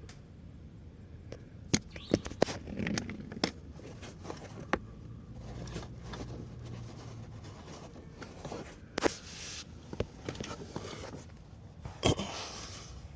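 Handling noise from work on the car's blower housing: scattered sharp clicks and knocks, the loudest about two seconds in, with short scrapes near the end, over a low steady hum.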